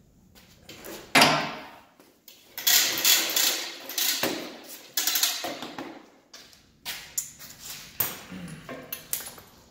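Irregular bursts of clatter and rushing noise from handling an air hammer and its red air hose while hooking them up. The loudest is a sharp burst about a second in, with more bunched between about two and six seconds in.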